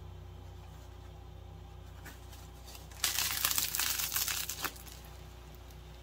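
A crusty sourdough loaf torn open by hand, its crust crackling and breaking: a few light crackles, then a dense burst lasting under two seconds about three seconds in. A low steady hum sits underneath.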